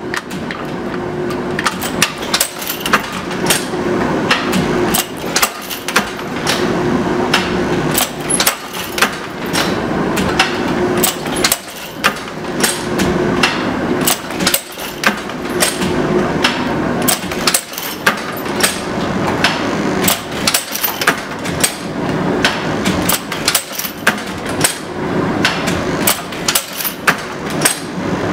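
1926 automatic chain butt-welding machine running as it forms and welds chain links: a steady mechanical clatter and hum, with sharp metallic clacks about two or three times a second.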